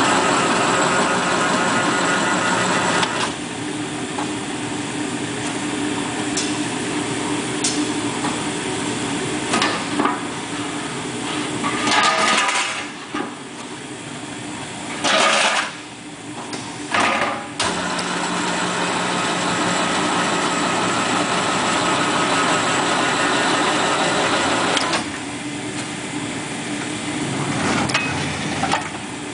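Automated skid indexer running: a steady machine hum whose tone shifts a few times as its drives start and stop, with a few sharp clicks and several short noisy bursts around the middle.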